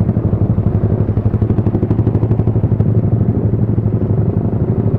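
Motorcycle engine running at a steady speed while being ridden, an even low drone.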